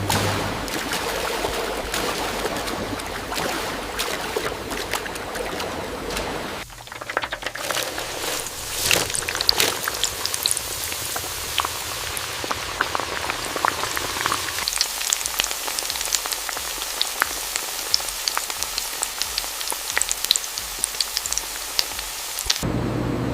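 Hot oil sizzling and crackling, with many small sharp pops over a steady hiss, as potato slices fry. The sound changes abruptly about seven seconds in to a thinner sizzle with more distinct pops.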